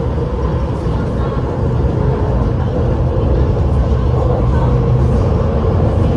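Cabin noise of an MTR SP1900 train running between stations: a steady low rumble with a faint hum, slowly getting louder.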